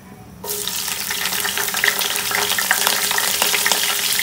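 Fresh coconut slices going into hot oil with green cardamom in a non-stick kadai: the oil bursts into a loud sizzle about half a second in and keeps crackling and spitting steadily.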